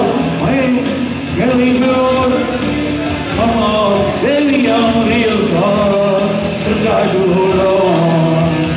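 A man singing into a handheld microphone over a rock backing track with a steady beat, holding and bending long sung notes.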